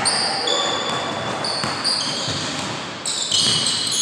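A basketball dribbled on a hardwood gym floor, with short high-pitched sneaker squeaks on the court several times, most of them in the last second.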